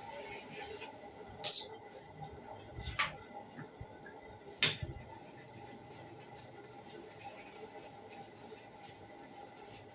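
Light scraping and rubbing of metal hair-clipper blade parts, broken by three sharp clinks, the loudest about one and a half seconds in and the others at about three and five seconds.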